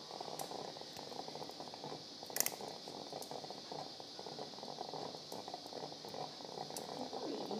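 Quiet operating-room background: a steady hiss under faint ticking of steel surgical instruments, with one sharper click about two and a half seconds in.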